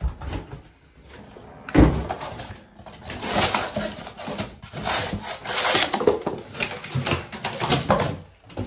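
Cardboard packaging being pulled and lifted out of a box: the cardboard rustles, scrapes and knocks, with a heavy thump a little under two seconds in.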